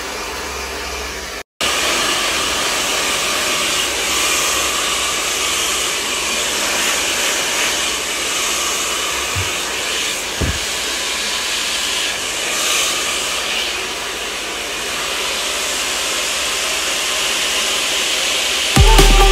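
Handheld hair dryer blowing steadily during a salon blow-dry, with a brief cut-out about a second and a half in. Music with a heavy bass comes in at the very end.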